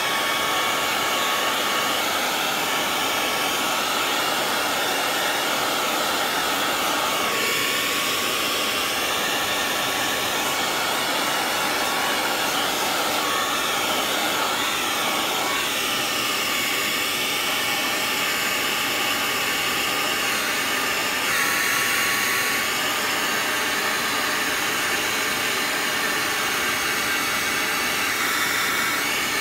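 Handheld hair dryer blowing steadily on a leather knife sheath to warm the shoe grease into the leather. Its rushing air and faint motor whine change tone slightly now and then as the dryer is moved over the sheath.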